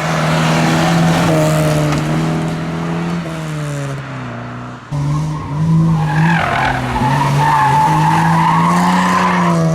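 Historic rally car engine running hard at high revs, its pitch dropping about halfway through, then after a sudden change another car's engine under power with tyres squealing through a corner.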